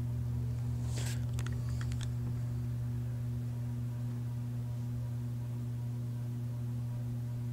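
A steady low electrical hum, with a short cluster of clicks and rustles about one to two seconds in.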